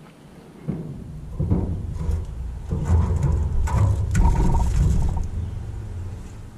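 Metal gas-grill grates clattering and knocking several times as they are lifted and shifted by hand, over a low rumble.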